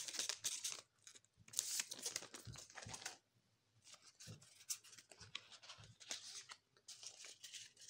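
Magic: The Gathering foil booster pack wrapper crinkling and tearing as it is pulled open, with the cards inside rustling as they slide out. It comes as a run of irregular crackles and small clicks in several spells.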